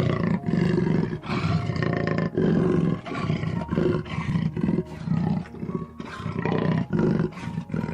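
Jaguar roaring in a long string of repeated calls, each about half a second to a second long, with short gaps between them.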